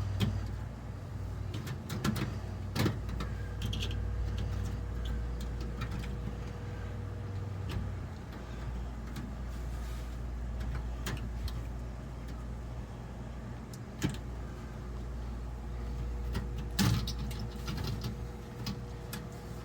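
Chicken wire and baling wire being handled around an exhaust pipe: scattered clinks, clicks and rustles of the wire mesh, the clearest about 3, 14 and 17 seconds in, over a steady low hum.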